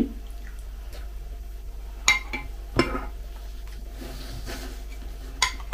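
Metal spoon clinking against a ceramic bowl while scooping cereal flakes in milk, a few short clinks spread through the moment.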